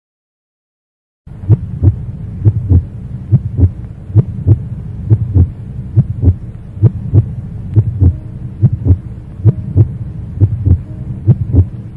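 Heartbeat sound effect: paired low thumps (lub-dub) repeating evenly at about 70 beats a minute over a steady low hum. It starts about a second in and stops abruptly near the end.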